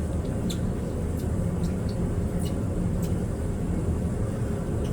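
Steady low rumble, with a few brief, faint high chirps.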